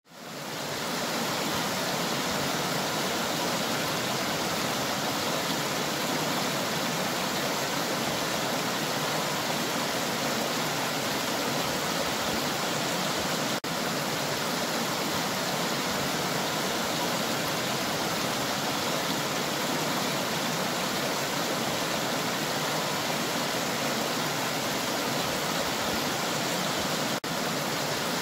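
Shallow river water spilling over a low weir and running across stones: a steady rushing. It briefly drops out twice, about halfway and near the end.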